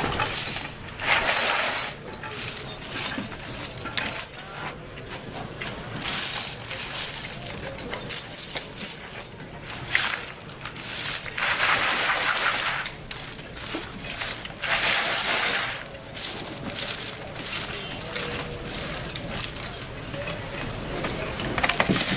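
Irregular bursts of scraping and clinking of hard pieces being handled, each lasting a second or two, with brief pauses between.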